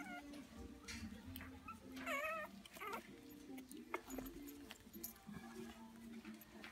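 Four-week-old toy schnauzer puppies whining, with a short falling whine at the start and a longer wavering whine about two seconds in, then a brief cry just after. Quiet music plays underneath.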